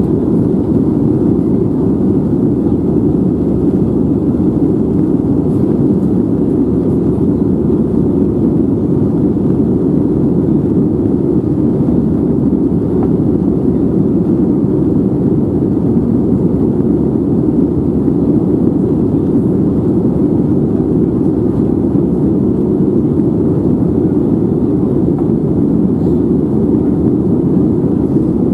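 Airplane cabin noise: the engines and airflow heard from inside the cabin as a steady, low, even rumble that does not change.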